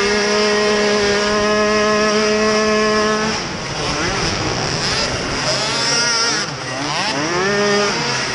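Youth racing quad's small engine heard close from the onboard camera, held at a steady high pitch at full throttle for about three seconds, then its revs swing up and down again and again as the throttle is chopped and opened.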